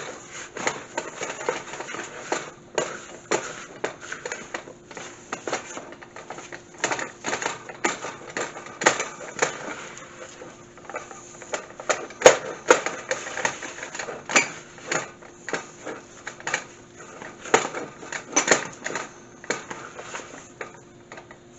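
Wooden spoon stirring pumpkin pancake batter in a plastic mixing bowl: a steady run of irregular clacks and scrapes, a few a second, as the spoon knocks against the bowl's sides.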